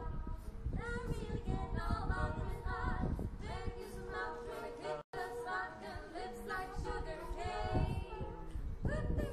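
Small a cappella student vocal group singing in harmony, with a steady note held underneath the moving voices. The audio cuts out for an instant about five seconds in.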